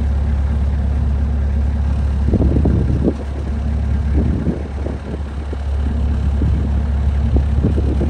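Bobcat skid-steer loader's engine idling steadily, with a run of irregular knocks and rattles starting about two seconds in.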